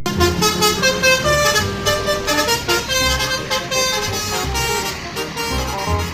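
Musical 'telolet' air horn on a bus or truck, several trumpets sounding together and playing a quick tune of changing notes.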